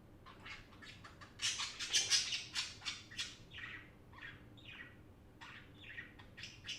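Budgerigars chirping and chattering in quick, short calls, busiest and loudest from about a second and a half to three seconds in, then sparser.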